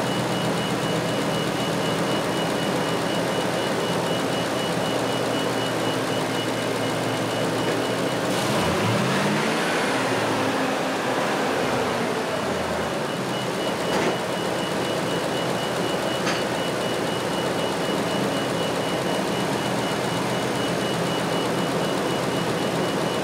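Car engine running under the open hood and revved during an alternator charging test, its pitch rising briefly about eight seconds in. A high pulsing tone runs alongside.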